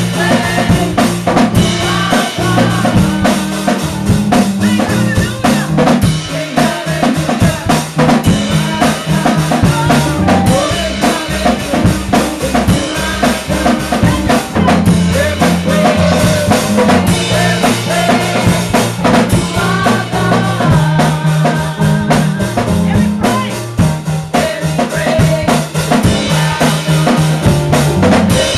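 Live gospel music: a woman singing lead over a drum kit keeping a steady beat and a keyboard holding low chords.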